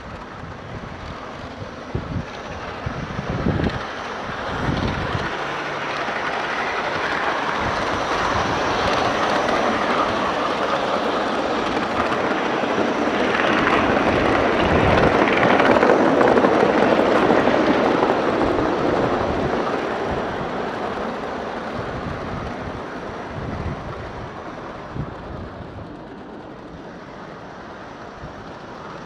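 Aster live-steam gauge 1 model of a BR Standard Class 5 locomotive running with coaches. Its wheels on the track and its steam exhaust grow louder as it passes close, loudest about halfway through, then fade as it runs away. A few wind gusts hit the microphone early on.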